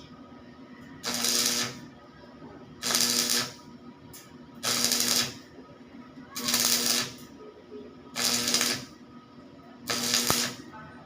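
Electric welding arc struck in short, evenly spaced bursts: six crackling, sizzling welds of about half a second each, about every two seconds, with the welder's hum under each one.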